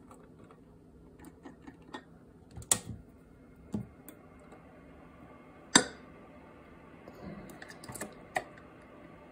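Scattered small clicks and taps of test probes and leads being handled and connected to a metal-cased power resistor, with the sharpest click about six seconds in.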